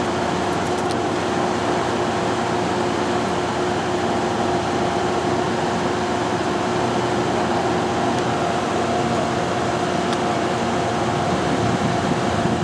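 Steady hum and whir of a standing Amtrak Amfleet passenger car's air-conditioning and ventilation equipment, an even noise with a constant low tone under it.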